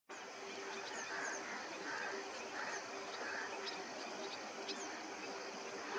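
Waterside ambience: scattered short, high bird chirps over a steady hiss and a faint, steady low hum.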